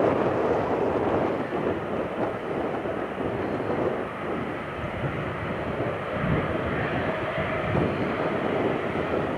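Jet airliner engines running as the aircraft passes, a steady rushing drone with wind buffeting the microphone.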